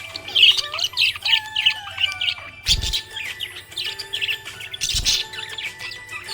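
Budgerigar chirping and warbling in a rapid, continuous chatter of short high notes. Two brief low thumps come through, a little under halfway and again near the end.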